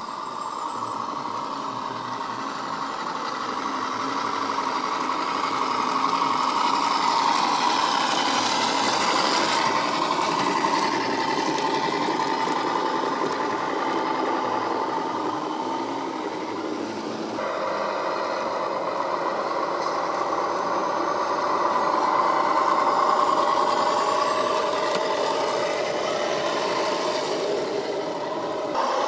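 Radio-controlled model MAN military truck running, its sound module playing a steady truck diesel engine drone with hardly any bass. The sound changes abruptly about two-thirds of the way in.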